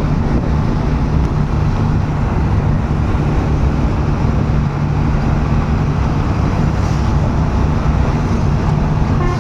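Vehicle engines and road noise on a highway: a loud, steady low drone with no horn sounding.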